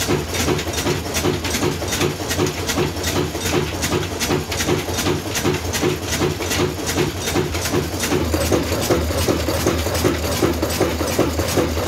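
Old Ruston Hornsby diesel engine running steadily, with an even beat of about five firing knocks a second.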